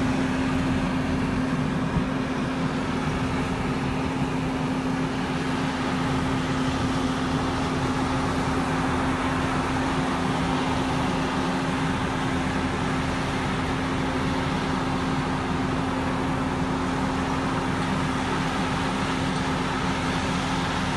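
Orchard atomizer sprayer running steadily: a constant mechanical drone with one steady hum, unchanging in speed.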